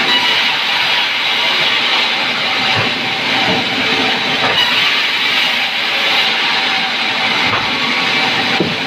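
A woodworking machine running steadily on sengon wood, giving a loud, even mechanical noise.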